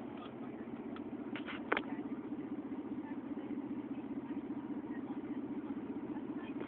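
Van engine idling steadily, with a couple of short clicks about a second and a half in.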